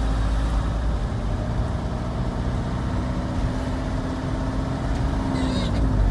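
Car running along a road with a steady engine drone and low rumble; the drone drops in pitch near the end.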